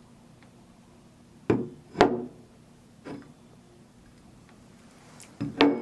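Objects being handled and set down on a hard surface: a few sharp knocks, two a half-second apart about a second and a half in, a lighter one a second later, and a loud double knock near the end.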